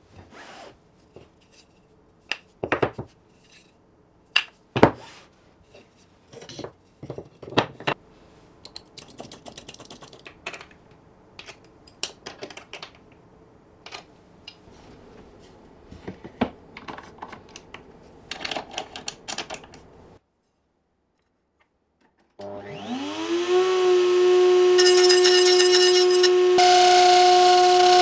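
Sharp wooden and metal knocks and clicks as plywood jig parts are set down and fastened with bolts and nuts. Then a table-mounted router starts, spinning up for about a second to a steady high whine that grows stronger near the end.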